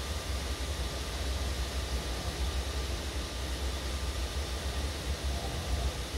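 Steady low rumble and hiss of a train at a station platform, with a faint steady whine above it.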